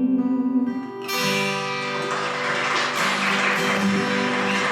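The final bars of a song on acoustic guitar: a held sung note ends about a second in, and a last strummed chord rings out.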